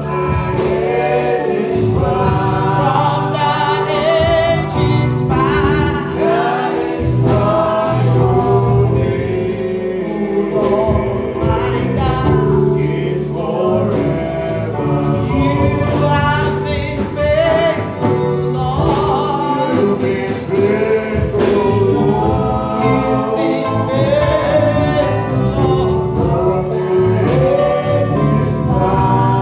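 Gospel music with a choir and solo voices singing over bass and drums.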